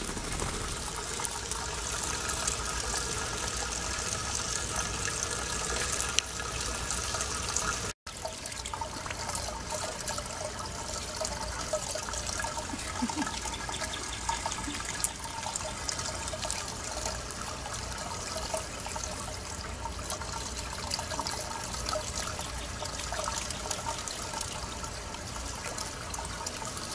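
Water running steadily from a hose into a shallow metal tub, splashing on the water's surface. It breaks off for an instant about eight seconds in.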